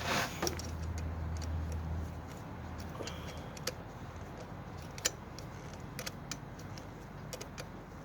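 Scattered light metallic clicks and clinks of hand tools and intake hardware being handled during disassembly, with a low rumble in the first two seconds.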